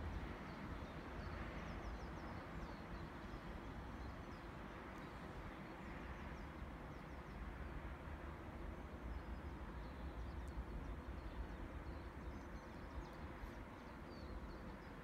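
Quiet outdoor ambience: small birds chirping now and then over a steady low rumble.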